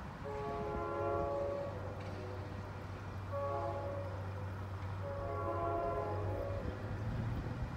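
Distant train horn sounding three blasts of a multi-note chord, the third the longest, over a low steady rumble.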